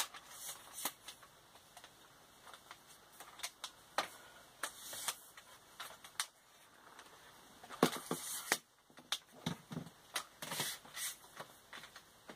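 Irregular sharp clicks and knocks of a new camera tripod being handled, its plastic and metal parts and catches clicking, with a busier cluster of knocks about eight seconds in.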